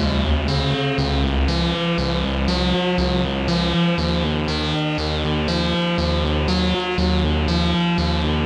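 Dreadbox Erebus v3 analog synthesizer playing a short repeating sequence of plucky notes, about two a second, each note's bright top fading quickly. The low notes shift to a new pitch about four seconds in as the knobs are turned.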